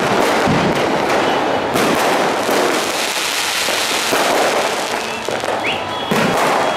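Aerial fireworks going off in quick succession, many bangs and crackles running together into a loud, continuous barrage.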